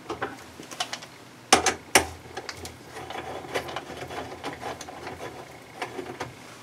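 Hands working with plastic console parts and small hardware: scattered clicks, two louder knocks about a second and a half and two seconds in, then a run of light rattling clicks.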